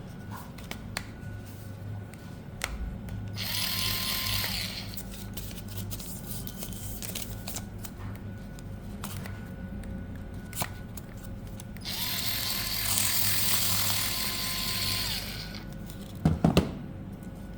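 Ryobi ZipSnip cordless scissors' motor running in two bursts, a short one and then a longer one, each rising in pitch as it spins up and falling as it stops, with small clicks of handling between them. A few sharp knocks near the end.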